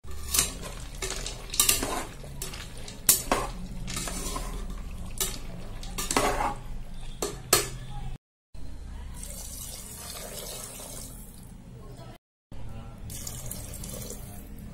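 A metal spoon stirring macaroni in an aluminium pressure-cooker pot, clinking and scraping against the pot's sides with about a dozen sharp knocks over the first half. Then water pours into the pot with a steady hiss.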